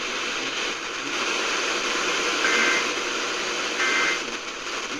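Weather radio static and hiss, broken twice in the second half by short two-tone digital data bursts about a second and a half apart: the Emergency Alert System SAME end-of-message tones that close a severe thunderstorm warning.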